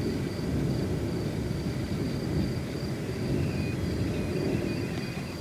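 Low, continuous rumbling of the erupting Cumbre Vieja volcano, with faint steady high tones above it.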